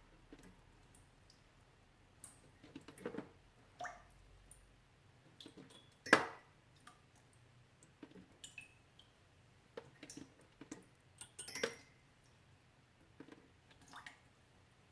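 Melting ice dripping: irregular water drops and small clicks, a few at a time with short gaps. One louder drop comes about six seconds in.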